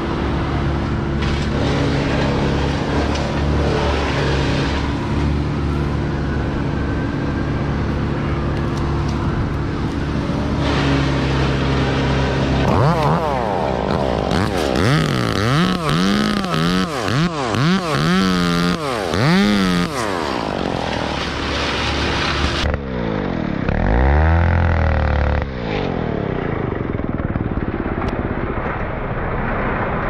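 Two-stroke chainsaw engine running steadily, then revved up and down again and again as it cuts a pine limb, the pitch swinging with each throttle pull; one more short rev follows near the end.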